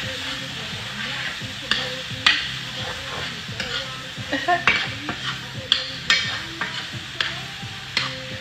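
Mixed vegetables sizzling in a frying pan while being stirred, with irregular sharp clicks and scrapes of the utensil against the pan.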